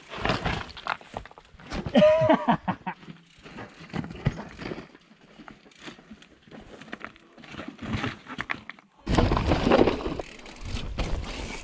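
Mountain bike clattering over loose rocks on a steep trail, tyres and frame knocking and rattling in irregular hits. About nine seconds in this gives way to a louder, steady rush of wind and tyre noise from a helmet camera riding down the trail.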